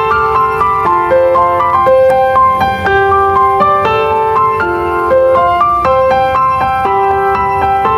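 Background music: a light piano melody over a soft backing, notes changing several times a second.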